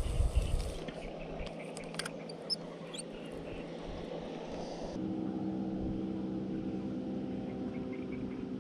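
Outdoor ambience with a few short bird chirps, then a distant engine droning at a steady pitch that comes in about five seconds in and holds.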